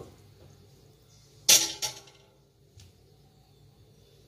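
Metal clanks as a wire steaming rack is set down into a stainless steel steamer pot: a sharp, ringing clank about one and a half seconds in, then a lighter one just after. At the very end comes another sharp knock as the bowl meets the rack.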